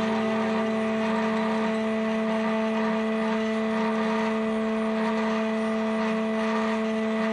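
Ambient drone music: a steady chord of held tones over a soft hiss, unchanging throughout.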